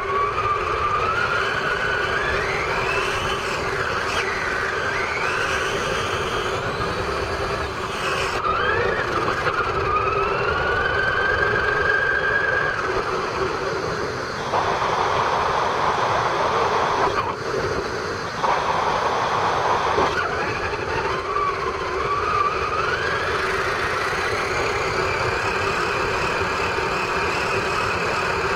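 Electric motor and gearbox of a Traxxas Summit radio-controlled truck whining, its pitch rising and falling again and again with the throttle, over a rough rumble of the tyres rolling across a metal footbridge.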